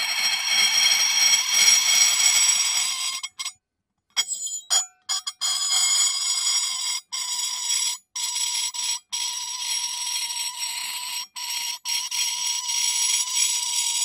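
Porcelain rubbed against porcelain, squeaking in long, high, piercing squeals, with several short breaks where the rubbing stops and starts again.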